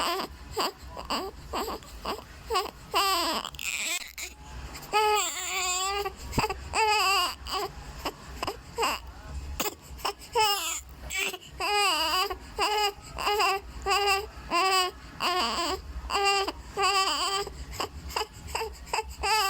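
Three-week-old newborn baby crying in short, wavering cries, one after another. The cries get louder about five seconds in.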